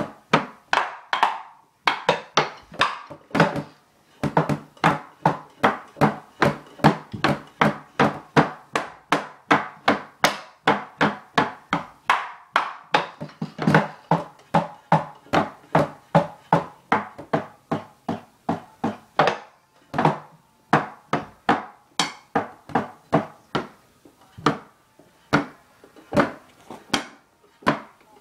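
Wooden drumsticks beating on the rubber pads and cymbal pads of an electronic drum kit, heard only as the sticks' own clacks and thuds, since the kit's drum sounds go to headphones. A fast, steady stream of hits with a few short breaks.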